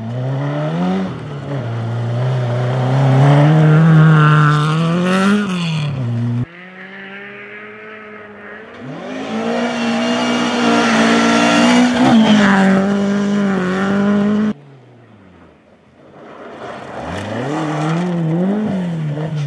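Rally car engines revving hard on a snow stage, in three separate passes cut together: each engine climbs and drops in pitch over and over as the driver works the throttle and changes gear. The sound cuts off abruptly twice, about six seconds in and again near the end, and another car's engine takes over.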